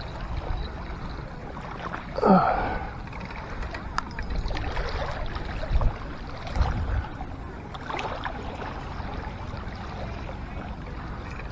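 Wind rumbling on the microphone over small water sounds at the shoreline, with a few sharp clicks and knocks. A short falling sound about two seconds in is the loudest thing.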